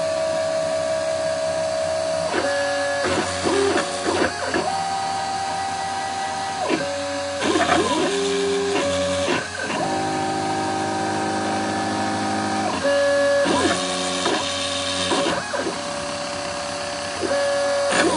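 Mini CNC milling machine's stepper motors whining at a series of steady pitches that jump to a new note every second or two as the axes change speed and direction, over a steady high hiss from the spindle cutting a copper-clad circuit board.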